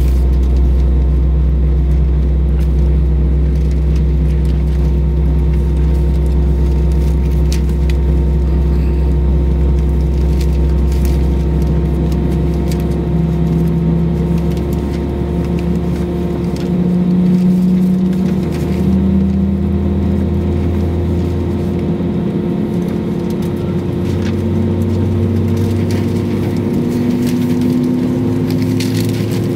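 Cabin noise of an Airbus A320-232 taxiing at low power: a steady hum from the IAE V2500 engines and cabin air, with one tone that slowly rises in pitch over the second half.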